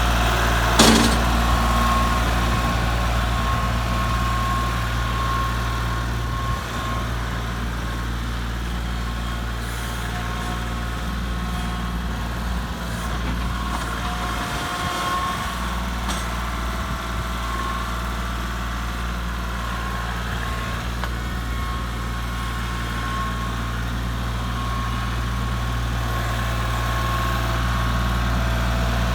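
Tractor engine running at a steady speed, with a single sharp clank less than a second in.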